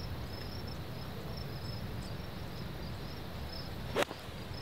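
A golf iron strikes the ball from a sand bunker: one sharp strike about four seconds in. Steady insect chirring runs underneath.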